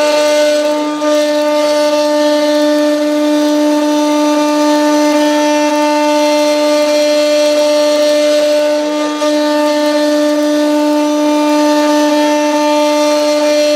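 DIY 4060 CNC engraver's high-speed spindle running steadily while milling 45C steel, a constant whine with a stack of overtones. It dips briefly about a second in and again near nine seconds.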